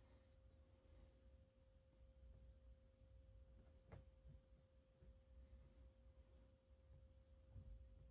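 Near silence: room tone with a faint steady whine and a soft tick about four seconds in.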